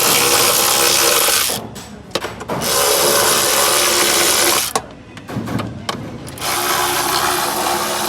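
A power tool running in three long bursts with short pauses between, then cutting off abruptly.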